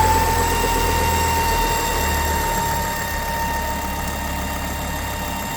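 Ford S-Max 2.5T's Volvo five-cylinder turbo engine idling, with a thin high whine over the idle that fades away about three seconds in. The whine is the sign of a failed oil filter housing diaphragm letting strong vacuum build in the crankcase.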